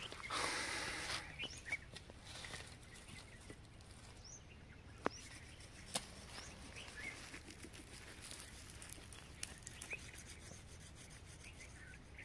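Dry sticks rustling as they are handled in the first second, then a few sharp clicks and scattered faint bird chirps.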